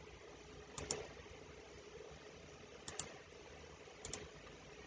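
Faint computer mouse clicks: three short pairs of clicks, about a second in, near three seconds and about four seconds in, over quiet room tone.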